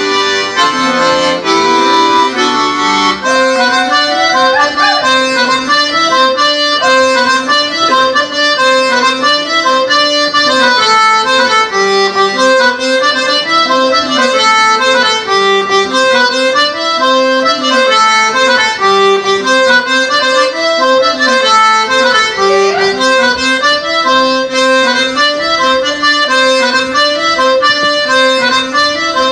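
Traditional Breton dance music played on instruments: a steady, repeating dance tune whose arrangement changes about three seconds in.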